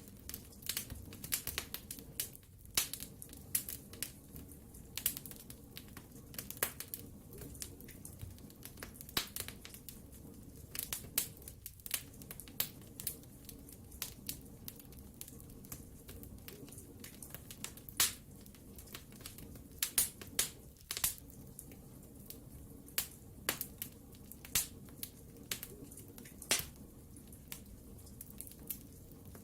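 Wood fire burning in a fireplace: irregular sharp crackles and pops, some in quick clusters, over a steady low rumble of the flames.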